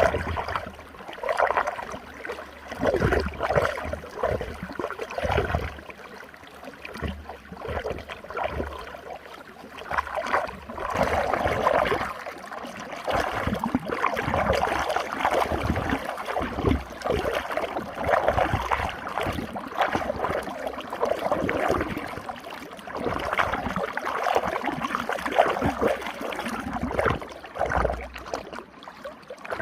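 Running water swirling in a whirlpool: a continuous rushing of water that swells and eases every second or two, with irregular deep low thumps underneath.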